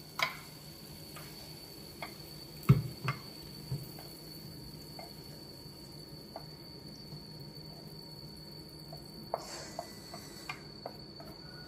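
Chopsticks scraping and tapping against a nonstick frying pan as stir-fried meat is pushed out onto a ceramic plate: scattered light clicks, a louder knock about three seconds in followed by a few more, and a brief scrape near the end.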